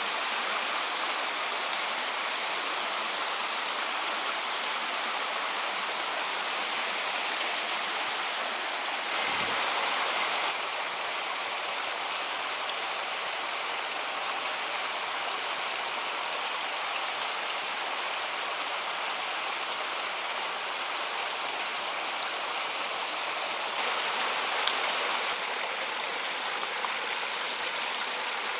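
Mountain stream rushing steadily over rocks, briefly a little louder about nine seconds in and again near the end.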